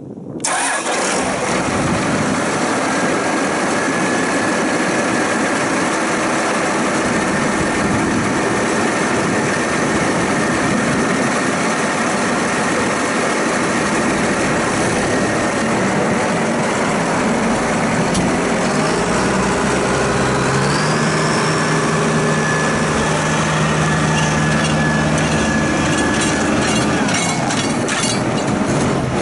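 Case IH Maxxum MX170 tractor's Cummins diesel engine running steadily. About two-thirds of the way through the engine note rises and holds higher for several seconds, then eases near the end, as the tractor is driven away.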